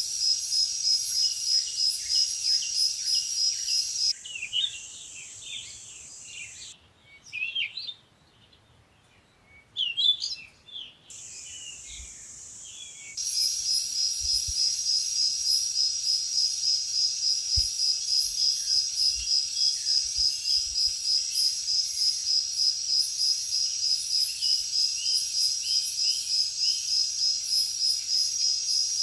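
Tropical forest ambience: a high-pitched insect chorus pulsing rapidly and evenly. It drops out about four seconds in, leaving short bird chirps and calls, then resumes about thirteen seconds in.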